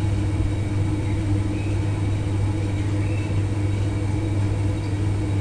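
Steady low hum with a fainter higher tone above it, unchanging throughout.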